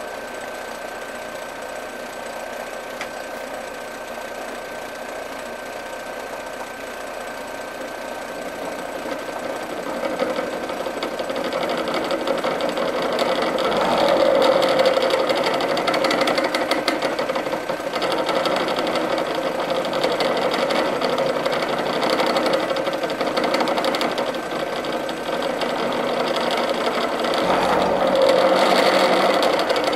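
Delta Rockwell drill press converted to a mill, running an end mill through an aluminum fitting on a climb-milling pass. The steady machine sound grows louder about ten seconds in and swells again near the end.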